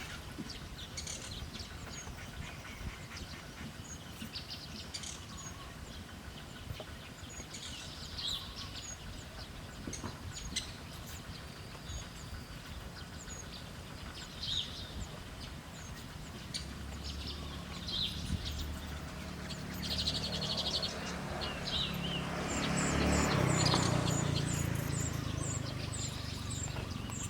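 Wild forest birds chirping, with short high calls scattered throughout and a fast run of repeated high notes near the end. A low rumble and a hiss swell up in the second half.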